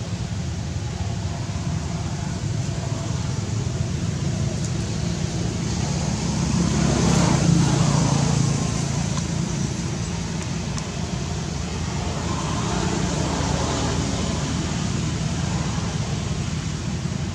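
Steady outdoor background hum with a motor vehicle passing by. It swells about six seconds in, is loudest near the middle and fades again about two seconds later.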